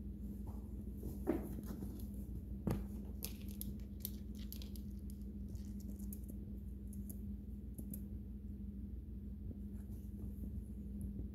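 A kitten scrabbling and pawing at a nylon bag and a plush toy, making light rustles and small ticks, with one knock nearly three seconds in. A steady low hum runs underneath.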